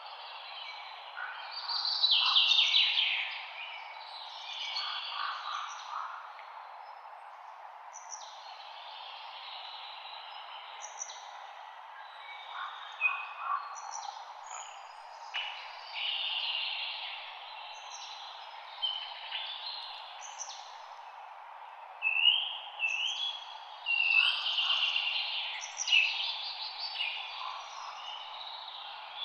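Songbirds singing and chirping, with short whistled phrases and quick rising notes, busiest near the start and in the last third. Underneath runs a steady soft hiss of light wind rustling leaves.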